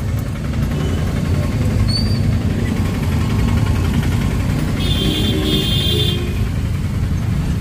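Steady low rumble of a car's engine and tyres heard from inside the cabin while driving. About five seconds in, a vehicle horn gives two short beeps.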